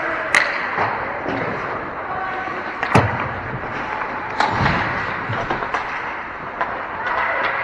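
Ice hockey play heard in an arena: sharp clacks of sticks and puck, with a loud bang about three seconds in and another thud about a second and a half later, over a steady din of rink noise.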